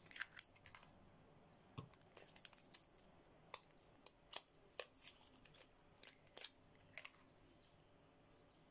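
Small cardboard boxes being opened and handled, their flaps and a small plastic pot giving a scatter of light clicks and taps that stop about seven seconds in.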